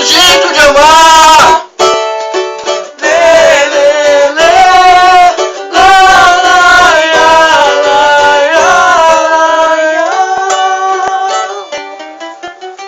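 Pagode song's instrumental ending, with a cavaquinho strumming and a sustained melody over it; it fades out over the last few seconds and then stops abruptly.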